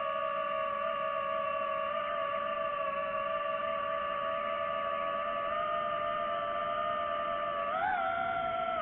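DJI FPV drone's motors and propellers whining at a steady pitch, with a short rise and fall in pitch near the end as the throttle changes.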